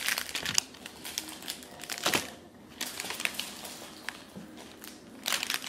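Packaging crinkling and rustling in short, irregular bursts, with a few knocks, as snack bars are gathered up by hand.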